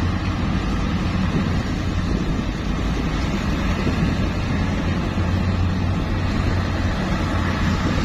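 Hyundai dump truck's diesel engine running steadily as the truck edges forward with its bed raised, tipping its load of dirt. The rumble is low and even.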